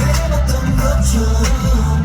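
Pop song played loud through concert speakers, with heavy bass and a steady drum beat.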